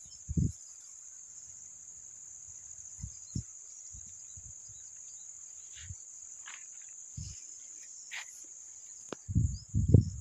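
Steady high-pitched drone of insects chirring. A few low thumps come through, heavier and louder near the end.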